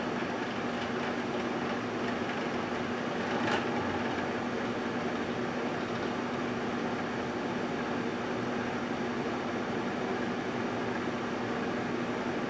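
1978 GE Dual Wave microwave oven running, a steady transformer hum with fan noise, with a single sharp click about three and a half seconds in.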